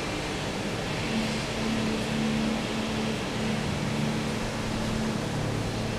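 A steady low mechanical hum with a constant noise behind it, like a running motor or fan.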